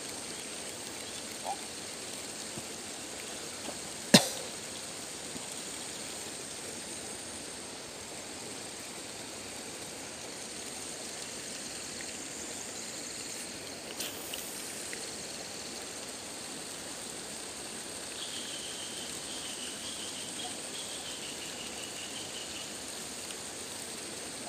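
Steady hiss of river water flowing over a shallow rocky riffle, with a high insect drone over it. A single sharp click about four seconds in, a smaller one later, and a faint wavering high call near the end.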